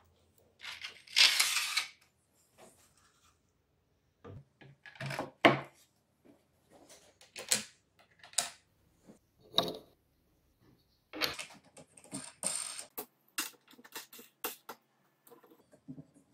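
Steel bolts clicking and plywood fence parts knocking and scraping as they are handled and fitted together by hand: a string of irregular sharp clicks and short scrapes.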